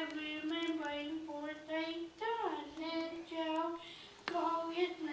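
Children's voices singing a song together in unison, in phrases of long held notes.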